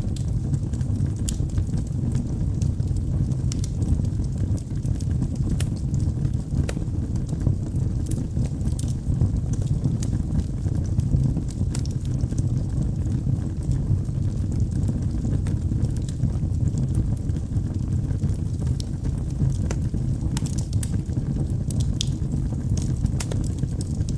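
Wood fire burning in a fireplace: a steady low rumble of the flames with scattered sharp crackles and pops, which come thicker near the end.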